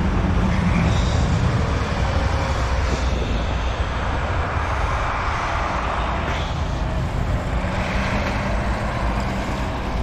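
Diesel dump-truck snowplow passing close, its engine rumbling steadily while its front and wing blades push and scrape through the snow on the road. A pickup truck follows near the end.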